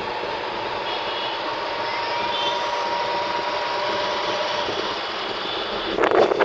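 Steady rushing noise of road traffic or a moving vehicle, with a faint steady whine in it. A loud rough burst of rustling or buffeting comes near the end.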